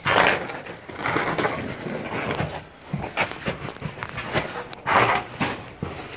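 Clothing, hands and shoes scuffing and scraping against sandstone walls and gritty sand as people squeeze sideways through a tight slot canyon. The sound is a run of irregular scrapes and knocks, with a louder rasping rush near the start and again about five seconds in.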